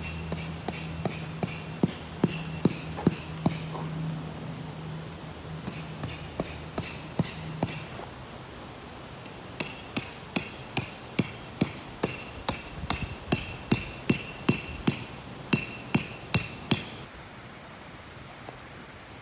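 Three runs of steady hammer blows, about two and a half strikes a second with a short metallic ring on each, separated by brief pauses: tent stakes being driven into the ground at the base of the tent.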